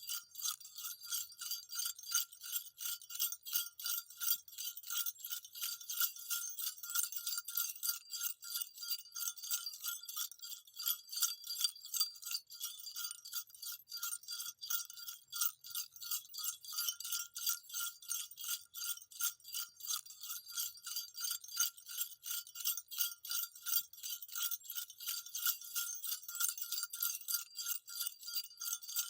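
Small jingle bells shaken continuously, jingling in a quick, even rhythm with a high-pitched ring.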